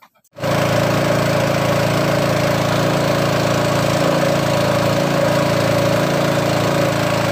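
Engine of a small wooden passenger boat running steadily under way, a constant drone that cuts in abruptly less than half a second in.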